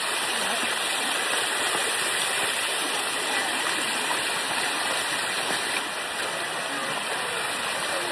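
Water rushing steadily down the Bua Tong (Sticky) Waterfall's limestone cascades, an even, unbroken rush close by.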